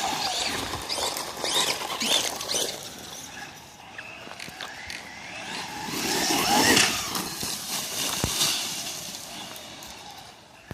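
Radio-controlled trucks driving about, their electric motors whining up and down in pitch with the throttle; loudest about six to seven seconds in.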